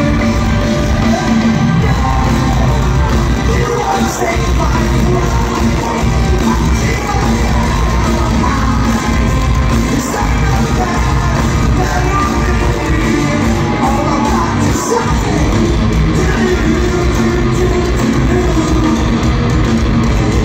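Live rock band playing loud in a large hall, heard from within the crowd: electric guitars, bass and drums with a sung lead vocal, and fans yelling along.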